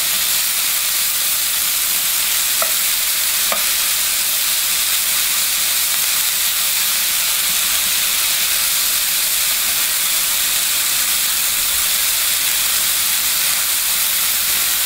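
Chicken fajita strips with sliced green pepper and red onion sizzling steadily in a hot frying pan while being stirred and tossed with metal tongs. Two short clicks come about three seconds in.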